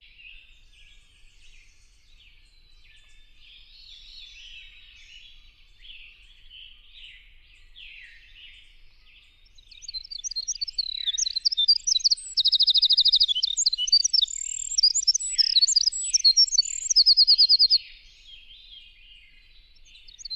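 Recorded winter wren song played back: faint high chirping at first, then, about ten seconds in, a loud, very fast run of high notes lasting about eight seconds, with two stretches of rapid trilled notes. The notes come too quickly for the ear to separate.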